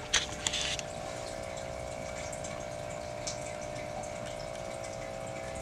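Steady machine hum, like a fan or small motor, with a few light clicks about half a second in.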